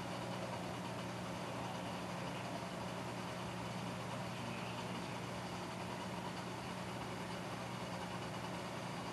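Steady low hum with a hiss over it from a running reef aquarium's pumps and water circulation, unchanging throughout.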